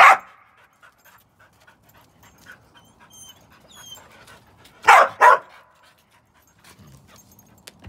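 Dog barking: one bark right at the start, then two quick barks together about five seconds in.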